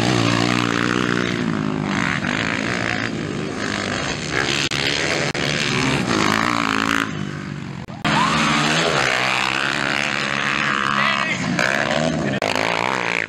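Motocross bike engines revving hard and backing off as riders race around a dirt track, the pitch rising and falling with each throttle change. The sound breaks off briefly about eight seconds in and picks up again.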